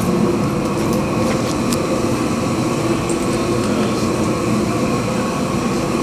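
Steady rumbling rush of the plank-steaming rig as steam is fed into the plastic-wrapped plank, with a few light taps about a second and a half in.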